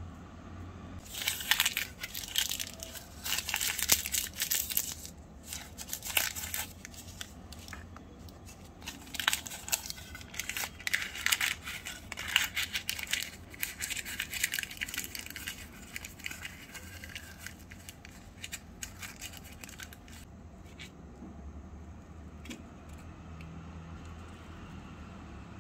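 A sheet of thin white paper crumpled and torn by hand: two spells of dense crackling, about a second in and again around ten seconds in, then only a few soft clicks.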